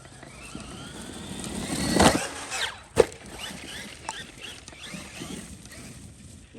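Traxxas Maxx RC monster truck's brushless electric motor whining and rising in pitch as it accelerates, loudest about two seconds in. About a second later comes one sharp knock, then shorter, fainter whines from the motor.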